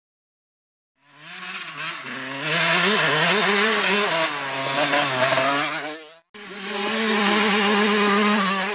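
Yamaha YZ125 two-stroke motocross bike engine, starting about a second in and revving up and down with a rising and falling pitch as it rides. It breaks off briefly about six seconds in, then holds a steadier, high note.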